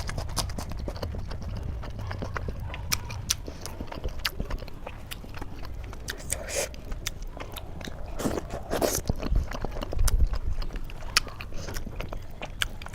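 A person eating aloo paratha with gravy close to the microphone: chewing, with many quick wet mouth clicks and smacks.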